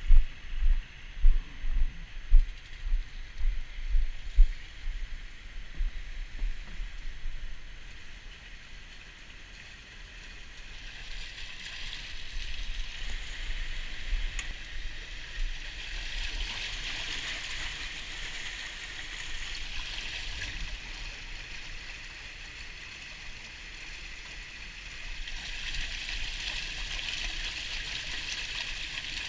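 Water rushing and splashing steadily as a fish pump pours water and salmon smolts onto a dewatering screen, louder in two swells. For the first several seconds a string of low thumps sounds, about two or three a second.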